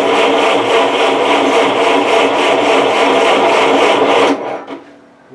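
Gas engine of a 1970s Bobcat 610 skid steer running loud and steady after a hard cold start, then cutting out abruptly about four seconds in, followed by a few faint knocks.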